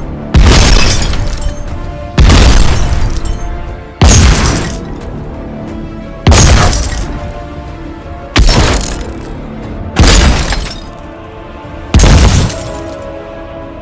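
A run of explosion sound effects with shattering glass, seven sudden blasts about every two seconds, each dying away over a second or so, over background music.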